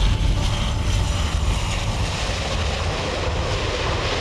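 Airbus A400M's four turboprop engines and propellers running steadily as the airlifter lands and rolls on an unpaved dirt runway.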